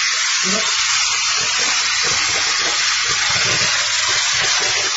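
Laser cutting machine running, with a loud steady hiss of rushing air that does not change throughout.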